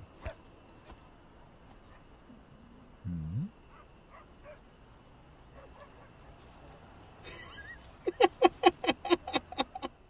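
Crickets chirping in a steady, even pulse, the quiet night-time pause of an awkward silence. About eight seconds in, loud laughter breaks out in short bursts.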